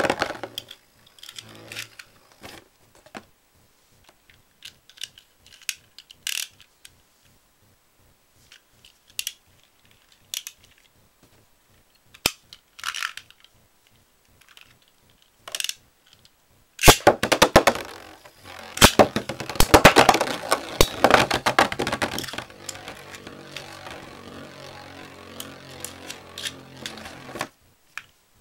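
Plastic and metal Beyblade spinning tops: scattered clicks and taps at first, then a dense clatter of hits as the tops clash in the stadium. After that comes a steady whir of a top spinning on, which stops suddenly near the end.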